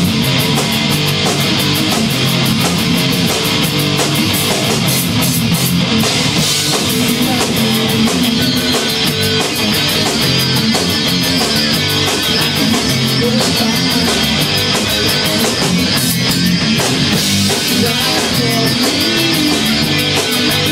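Rock band playing live: two electric guitars, a bass guitar and a drum kit, with a steady beat of cymbal hits.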